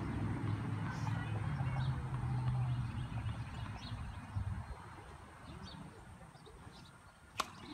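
A low engine hum that fades away over the first four seconds or so, with faint bird chirps, then a single sharp knock near the end.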